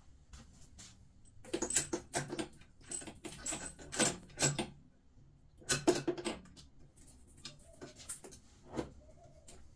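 Chrome shower column and mixer being handled and pressed onto the wall outlets: three bunches of quick metal clicks and knocks, then a few scattered clicks near the end.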